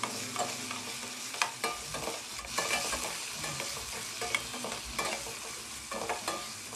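Chopped tomatoes, onions and green chillies sizzling in mustard oil in a stainless steel pot, stirred with a steel spoon that scrapes and taps against the pot now and then over a steady hiss.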